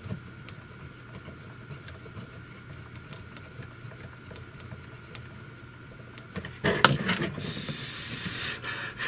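Faint small ticks of a small screwdriver tightening the screw on the plastic anemometer cup hub. About seven seconds in, a loud clatter as the plastic sensor array is picked up and turned, followed by a hiss of about a second.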